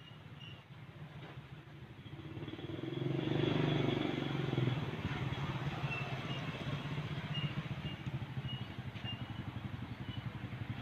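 A motor vehicle engine running, swelling louder about three seconds in and then holding steady, with a few faint short high chirps over it.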